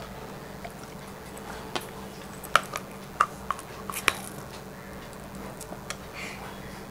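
Teeth biting and gnawing on a cooked mud crab's hard claw shell: scattered sharp cracks and clicks, with faint wet sucking. A faint steady hum runs underneath.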